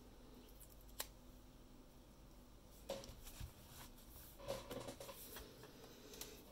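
Faint handling noises: a single sharp click about a second in, then a run of light clicks, taps and small scrapes through the second half.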